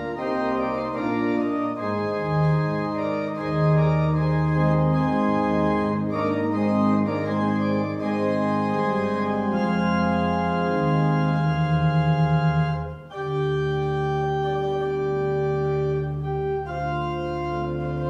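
Organ playing slow, sustained chords that change every second or two. One chord pulses with a quick wavering tremolo about twelve seconds in, followed by a brief dip in level.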